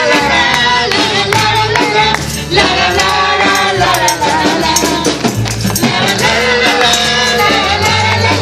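Upbeat Christian praise music from a live band, with a tambourine shaking over sustained melody notes and a bass line.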